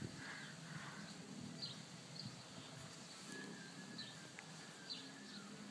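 Faint, short high-pitched bird chirps, a few spaced roughly a second apart, over a low background hum.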